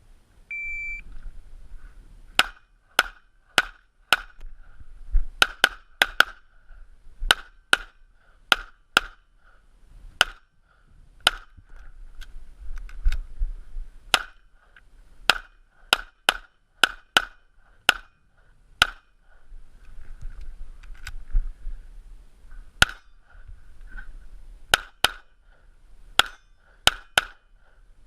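An electronic shot-timer beep starts the stage, then a string of gunshots from a practical-shooting course of fire, mostly fired as quick pairs with short pauses between positions. The shots are heard through a GoPro camera's microphone, with low rumble from handling and movement between them.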